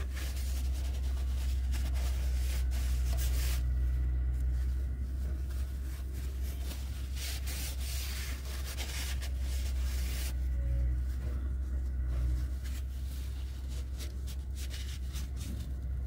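Paper towel rubbing and wiping inside the open fuel tank selector valve, mopping up lubricant, in repeated scratchy strokes with short pauses between them. A steady low rumble sits underneath.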